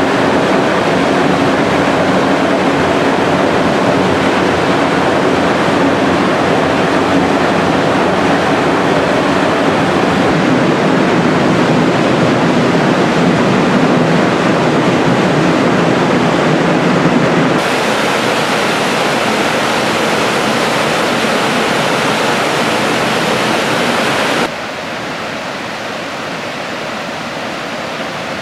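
Waterfalls pouring: a loud, steady rush of falling water. Its tone and level change abruptly twice, about two-thirds of the way in and again near the end, as one fall gives way to another.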